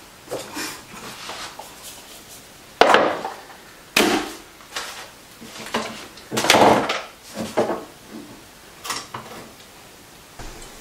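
Small plastic toiletry items, such as toothbrushes, razor heads and tubes, knocking and clattering as they are picked out of a wooden drawer and set down on a bathroom countertop. The knocks and rustles are irregular, with the loudest about three seconds in and about six and a half seconds in.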